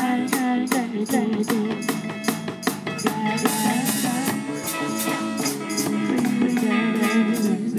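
Live band playing an instrumental stretch of a smooth soul song: a drum kit keeps a steady beat with crisp cymbal strikes under electric guitar and bass lines, the guitar bending notes.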